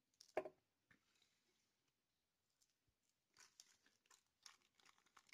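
Small plastic zip-lock bags handled on a table: a single knock about half a second in, then faint crinkling and rustling of the plastic.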